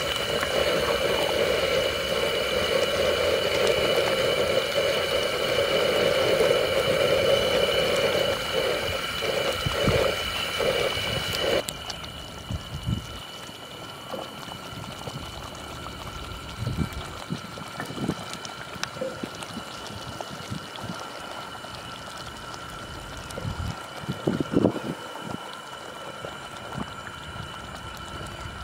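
Chicken curry boiling in a clay pot, a steady bubbling that breaks into separate bubbles shortly before it cuts off suddenly about twelve seconds in. After that only a quieter background with a few scattered short sounds remains.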